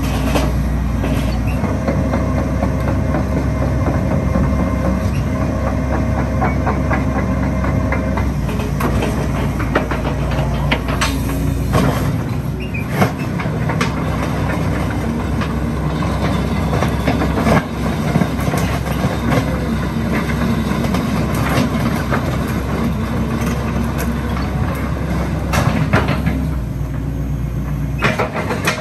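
Hitachi ZX130L-5B hydraulic excavator's diesel engine running steadily under working load as the machine swings, works its boom and travels on steel tracks. Frequent short clanks and knocks come from the track chain and fittings.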